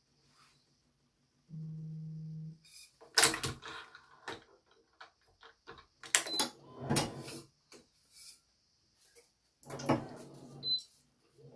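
Badminton racket being strung on a stringing machine: a steady machine hum lasting about a second, then three groups of sharp clicks and knocks from clamps and handling.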